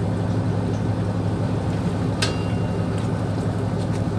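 Fishing boat's engine running with a steady low hum, and a single sharp metallic click with a brief ring about two seconds in.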